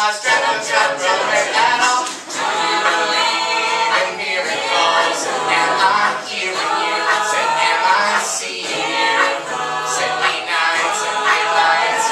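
Mixed-voice a cappella group of men and women singing in harmony through microphones, with no instruments.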